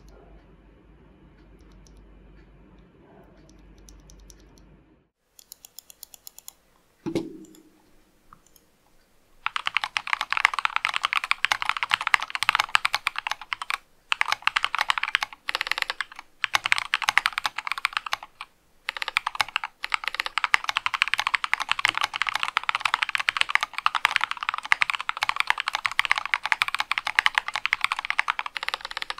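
A faint hiss, then a few light clicks and a dull knock, then fast typing on a mechanical keyboard. The keyboard has Durock POM linear switches, lubed with Krytox, and SA-profile keycaps. The typing runs steadily with a couple of short pauses.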